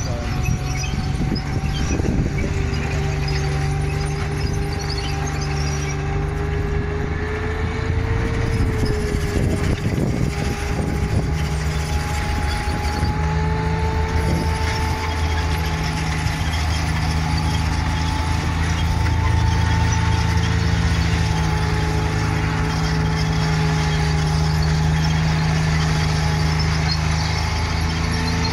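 Tiger I tank driving on its tracks, its Maybach V12 petrol engine running with a steady low drone and a wavering high whine over it.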